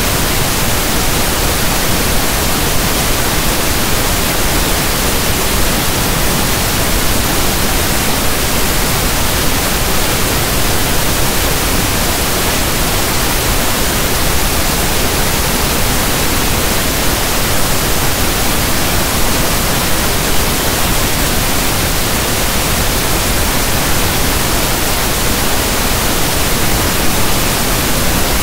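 Steady, unbroken pink noise: a soft static hiss like a radio tuned between stations.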